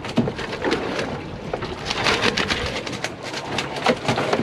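Irregular knocks and clattering from a freshly hauled wooden-slatted cray pot packed with live western rock lobsters as it is handled on deck.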